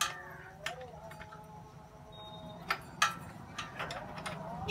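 A handful of sharp, irregular clicks and knocks from tools and parts being handled during work on a motorcycle, over a steady low hum.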